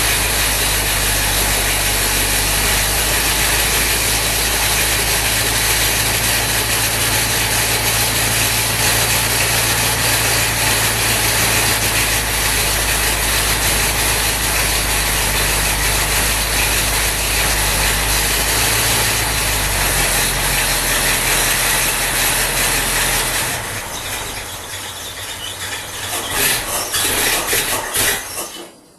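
Machinery running steadily with a low hum and a loud hiss, dropping away about 23 seconds in and stopping near the end.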